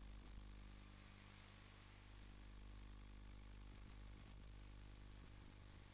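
Steady low electrical hum with a faint even hiss, unchanging in pitch throughout.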